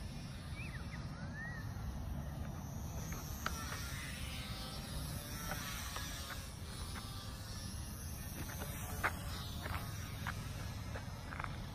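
Distant, faint whine of a Volantex Trainstar Mini RC plane's electric motor and propeller flying overhead, over a low rumble of wind on the phone's microphone. Short bird chirps come in about a second in and again near the end.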